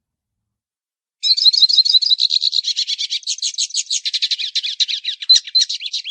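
Pintassilgo baianinho, a Brazilian siskin, singing a long, fast, unbroken twittering song of high chattering and trilled notes, starting about a second in and cut off abruptly at the end.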